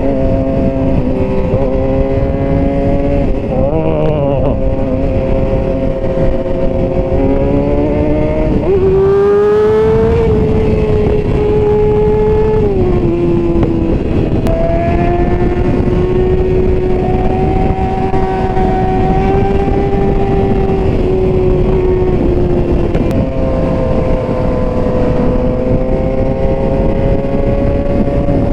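Motorcycle engine running under way, its pitch climbing and dropping several times with throttle and gear changes, a sharp rise about nine seconds in and a drop about three seconds later. Steady wind rush runs underneath.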